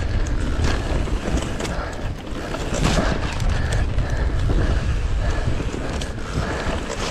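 Wind rumbling on the microphone of a handlebar camera on a mountain bike riding fast down a dirt singletrack, with the tyres crunching over dirt and loose stones and the bike rattling in quick, irregular clicks.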